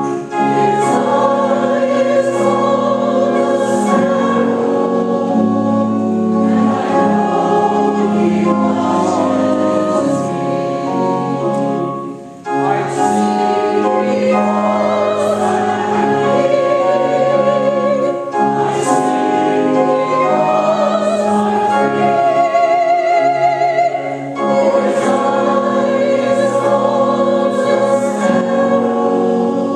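A group of voices singing a hymn, holding long notes with vibrato, with short breaks between phrases about twelve and twenty-four seconds in.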